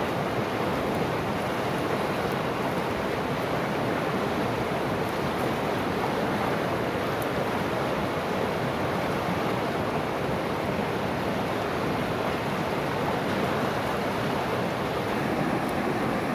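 Fast mountain river rushing over rocks in rapids, a steady, unbroken water noise.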